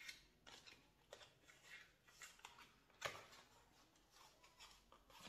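Faint rustling and light clicks of a cardboard eyeshadow palette box being handled and slid open, with a sharper tap about three seconds in.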